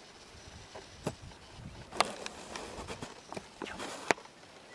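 Footsteps scuffing over dry ploughed soil, with a few sharp clicks spaced unevenly.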